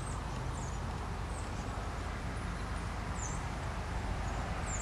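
Outdoor ambience at a rural railroad crossing: a steady low rumble with a few short, high, falling bird chirps scattered through it.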